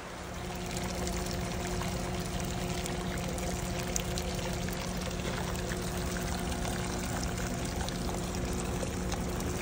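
Hot spring water pouring and trickling over rock close by: a steady running-water sound with a faint, steady low hum underneath.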